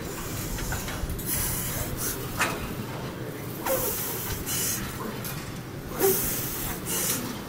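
Forceful hissing exhales with short grunts from a man straining through reps on a heavy leg press, one about every two seconds, three in all.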